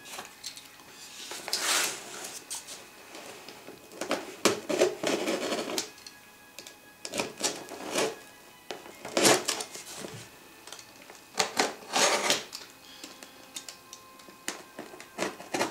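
A utility knife cuts the packing tape on a cardboard shipping box in several short rasping strokes. Between the strokes come clicks and taps as the box is handled and shifted.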